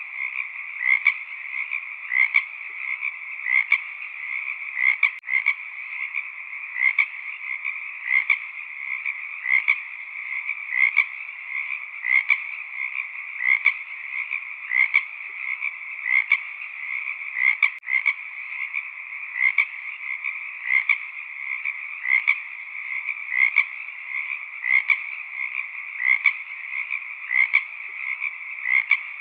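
Chorus of frogs calling: a steady dense chorus with louder croaks repeating evenly, about three every two seconds.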